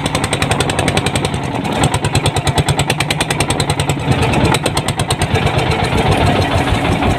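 A boat's engine running steadily, with a low hum and a rapid, even throb.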